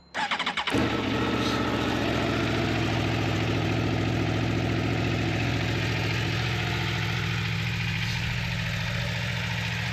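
2024 Aprilia Tuono V4's 1077 cc V4 engine, on its stock exhaust, cold-starting: a brief crank, catching under a second in, then a steady idle.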